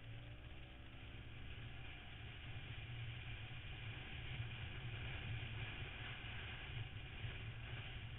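Motorcycle engine at road speed, heard from the bike itself: its note rises in the first couple of seconds as it accelerates out of a bend, then runs steadily over a constant low rumble.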